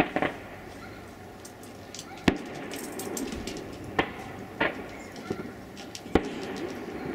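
Distant fireworks going off: a series of sharp bangs, the loudest about two seconds in and about six seconds in, with faint crackling between.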